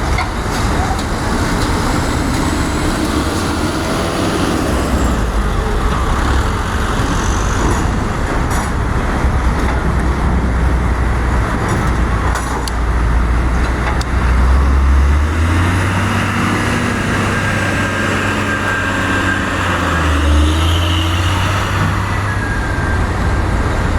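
Heavy engines running with a steady low rumble, the engine note shifting about two-thirds of the way through and again near the end, with a few faint clicks above it.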